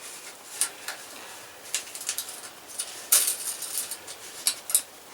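Light metallic clicks and rattles of a tent stove's thin sheet-metal collar and stovepipe and their retaining wires being handled and fitted together, in scattered taps with a small cluster a little past halfway.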